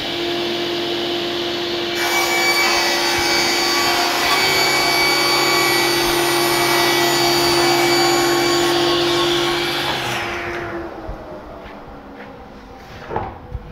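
SCM SC 1 Genius sliding-table circular saw running with its dust extractor on, the blade ripping a long panel fed on the sliding carriage from about two seconds in. The cutting noise dies away about ten seconds in, leaving a fainter hum with a small knock near the end.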